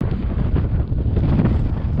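Wind buffeting the microphone: a loud, steady, low rumble that starts abruptly.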